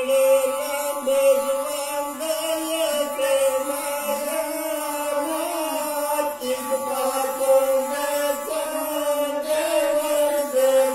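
A sarinda, the bowed Pashto folk fiddle, playing a melody of long held notes that waver and slide in pitch.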